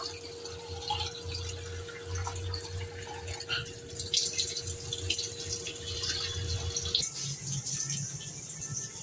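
Kitchen tap running into a steel bowl of red lentils held in a stainless-steel sink, water splashing as the lentils are rinsed, with a faint steady hum under it. The water sound breaks off about seven seconds in.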